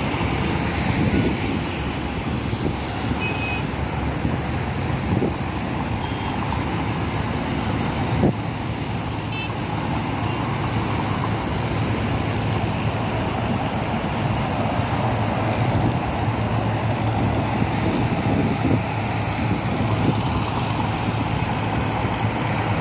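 Steady highway traffic from cars and buses passing, with a heavy engine's low drone growing stronger in the second half. A sharp knock sounds about eight seconds in, and a few faint short high beeps come in the first half.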